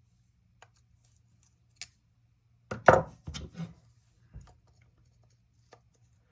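Tools and an old carburetor being handled: scattered sharp clicks and knocks, with a quick cluster of louder knocks about three seconds in.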